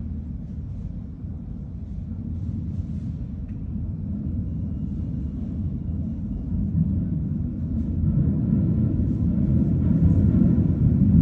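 Low rumble of an approaching Northern line 1995 Stock tube train coming through the tunnel, growing steadily louder.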